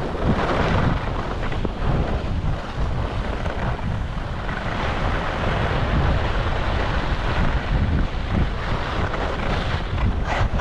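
Wind buffeting the microphone: a steady, loud rumbling rush that flutters up and down.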